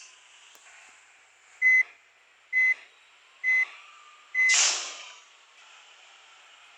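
A bus's electronic warning beeper sounding four short, identical high beeps about a second apart. A burst of compressed-air hiss from the bus comes at the fourth beep.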